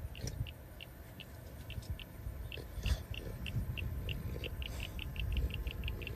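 A small animal calling by the water: short high notes at one pitch, repeated a few times a second and quickening toward the end, over a low rumble.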